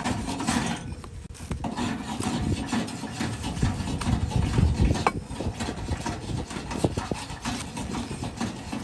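A donkey's overgrown hoof being trimmed: irregular scraping and cutting of the hoof horn, with scattered sharp clicks.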